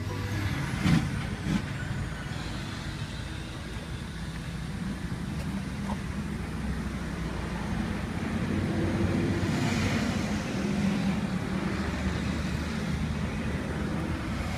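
Motor vehicle engine running steadily with a low rumble, with a couple of short knocks about a second in.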